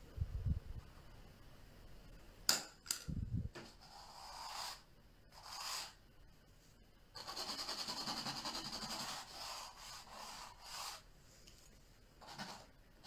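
Palette knife scraping and spreading oil paint across a canvas in several strokes, the longest about three and a half seconds, with a few sharp clicks and low knocks in the first few seconds.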